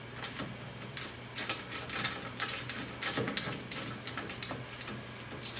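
Irregular metallic clicks and taps of a RIMS tube's welded bolts and tri-clamps being fitted through holes in a stainless steel table top.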